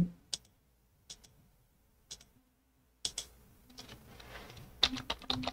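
Computer mouse clicking a few times, about once a second. From about three seconds in comes a quick run of keyboard keystrokes, a password being typed in.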